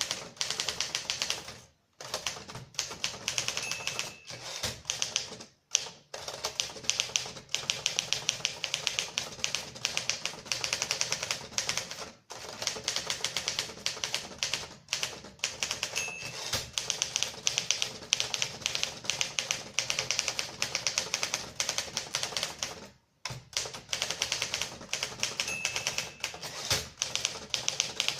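A 1956 Torpedo 18 manual typewriter being typed on at a brisk pace, with rapid keystrokes and typebars striking. The typing stops briefly a few times along the way.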